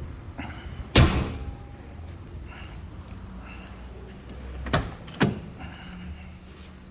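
Car bonnet slammed shut with one loud, deep bang about a second in. Two sharper knocks follow about half a second apart a little under four seconds later.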